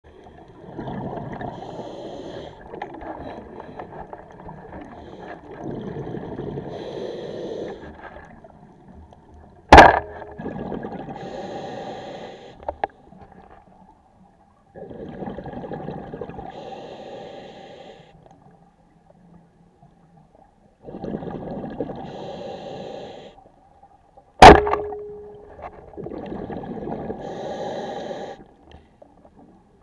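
Underwater audio through a camera housing: a diver's breaths come in long noisy stretches every few seconds, and twice, about ten seconds in and again near the end, a band-powered speargun fires with a sharp loud crack, the second followed by a short ringing tone.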